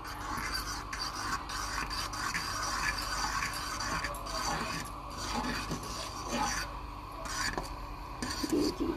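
A metal fork stirring and scraping around a metal pot of chicken corn soup in quick, irregular strokes, swirling beaten egg into the broth.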